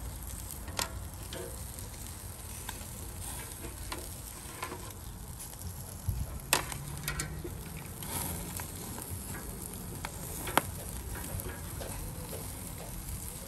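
Fat from a grilling milkfish (bangus) dripping onto burning charcoal, sizzling steadily with scattered sharp crackles and pops; the dripping fat is flaring the coals.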